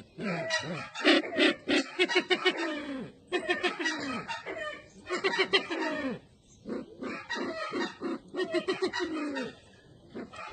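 Calls of the Sumatran ground bird known as burung merah mata or sempidan: three runs of rapid, low notes, each sliding downward, several to a second, with short pauses between runs.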